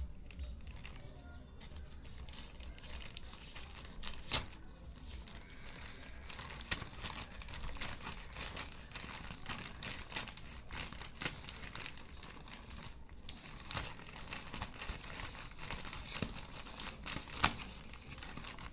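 A plastic courier mailer bag crinkling and tearing as it is cut and pulled open by hand, with irregular rustling and a few sharper, louder crackles scattered through.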